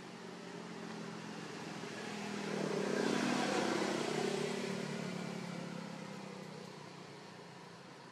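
A motor vehicle driving past, its engine and road noise growing louder to a peak about three seconds in and then fading away.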